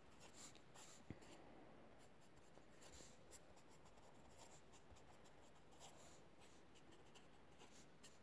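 Faint scratching of a pen drawing on notebook paper: many short, irregular strokes.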